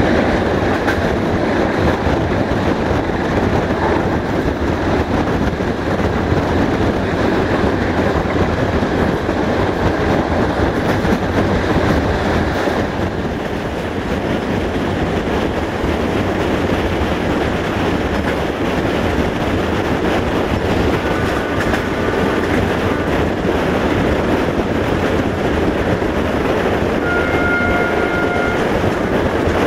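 Passenger train running at speed, heard from an open coach window: a steady rumble of wheels on the rails with clickety-clack over the rail joints. Near the end a brief horn tone sounds.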